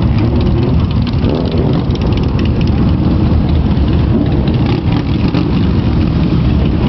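Loud, steady motorcycle engine noise.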